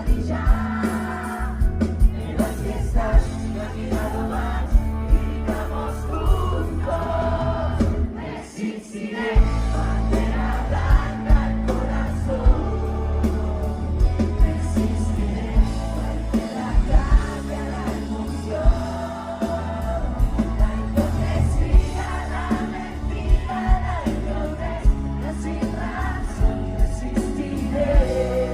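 Live pop-rock band playing with a lead vocal over drums and bass, the bass and drums dropping out briefly about eight seconds in before the full band comes back.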